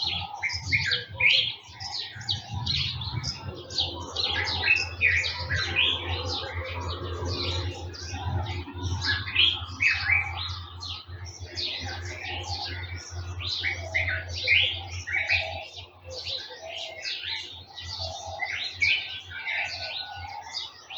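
Many small birds chirping and twittering at once, a dense chorus of quick high calls, over a low steady hum that fades about three quarters of the way through.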